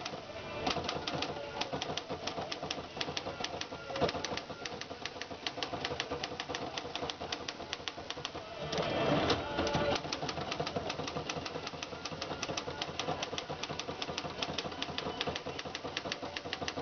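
Remington Standard manual typewriter being typed on: a quick, even run of key strikes clacking against the platen, about five or six a second. A louder, longer rattle interrupts the typing about nine seconds in.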